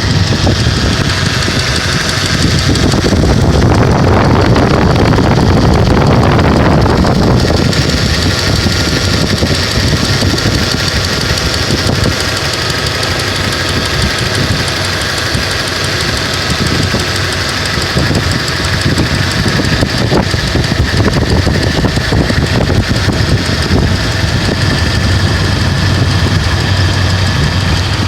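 An engine running with a knocking sound, typical of an engine knock, and vibration; it gets louder for a few seconds from about three seconds in, then settles back to a steady run.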